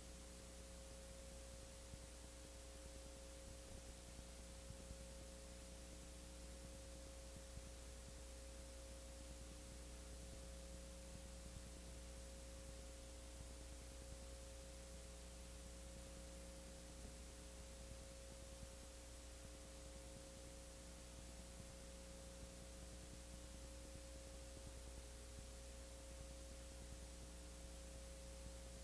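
Near silence: a steady hiss with a low electrical hum and a faint, unchanging high tone.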